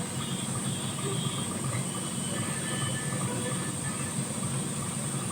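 Steady low machine hum with a constant high hiss and a few faint thin tones over it.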